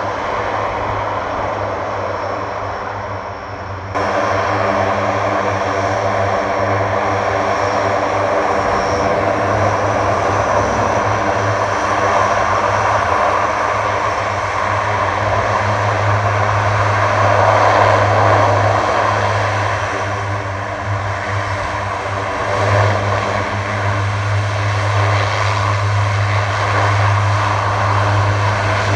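Lockheed C-130J Hercules taxiing on its four six-bladed turboprops: a steady, loud propeller drone with turbine whine above it. The sound jumps louder about four seconds in and swells briefly past the middle.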